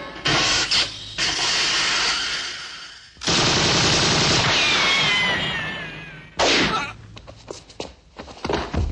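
Television sound-effect gunfire: several loud bursts of shots, with falling whines about halfway through, then a scatter of sharp cracks near the end.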